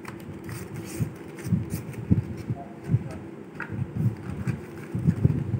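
Hands folding and creasing a sheet of colour paper on a book: soft, irregular dull thumps from pressing down, with faint paper rustling.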